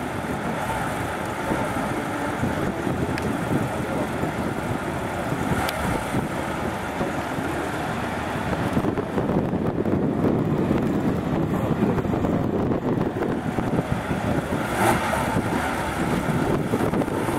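Sports-car engines idling in a line-up, a steady rumble that grows somewhat louder about nine seconds in.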